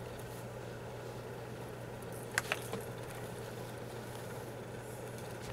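Steady low hum of room noise, broken about halfway through by two quick clicks as a steam iron is picked up and set down on a folded cotton handkerchief to press it.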